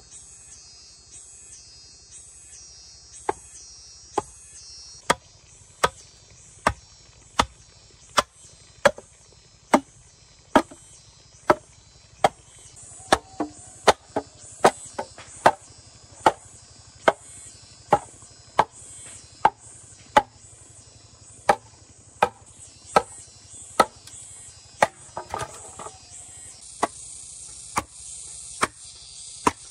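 Repeated sharp chopping blows of a hand tool on bamboo, a little faster than one a second, starting a few seconds in, with insects buzzing high and pulsing behind them.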